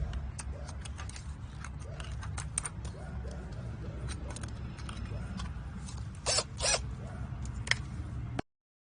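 Scattered clicks and scrapes of a tool bit and screws being worked out of a wooden chicken-coop door, with faint chicken clucking behind. There are two louder rasping scrapes about six and a half seconds in, and the sound cuts off abruptly near the end.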